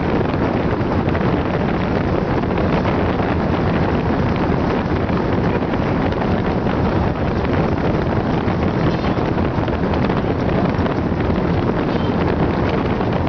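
Steady loud wind buffeting the microphone aboard a speedboat running at speed, with the boat's engine and water noise mixed in underneath.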